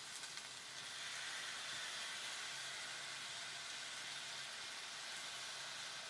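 Diced apples and sugar sizzling in an iron frying pan over a wood fire: a faint, steady hiss that grows a little louder about a second in.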